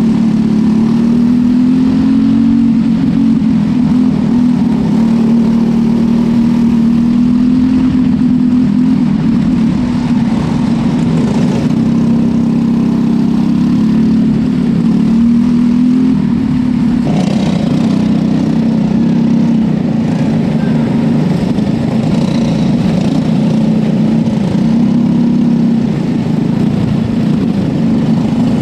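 Small single-cylinder racing kart engine heard from on board, running hard and steady at racing speed. Its pitch rises and dips slightly as the throttle changes.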